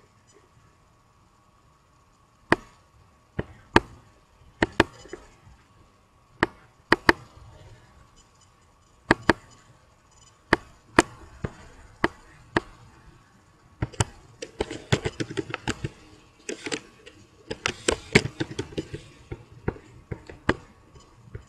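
Computer mouse clicking now and then, with a quick run of keyboard key presses a little past halfway, while code is entered.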